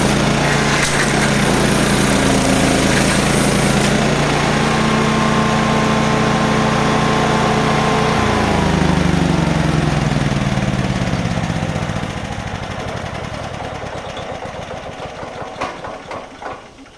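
Topmatic SC-450 stump grinder's 20 hp Loncin petrol engine running at speed, with a harsh noise over it for the first few seconds. About eight seconds in the engine is shut off and its pitch falls steadily as it and the cutter wheel spin down, ending with a few knocks as it stops.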